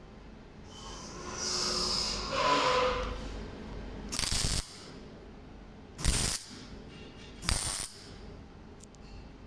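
MIG welder tack-welding a steel square-tube frame: several short bursts of arc noise, each about half a second long, the last three about one and a half to two seconds apart, after a longer stretch of welding noise in the first few seconds.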